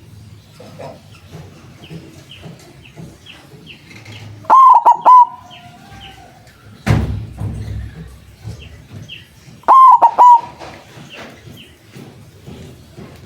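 White zebra dove (perkutut) cooing: two loud phrases of a few quick notes each, about five seconds apart. Faint high chirps of small birds run in between, and there is a dull thump about seven seconds in.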